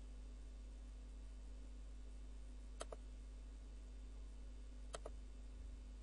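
Computer mouse button clicked twice, about three seconds in and again about five seconds in; each click is a quick press-and-release pair. A faint steady hum runs beneath.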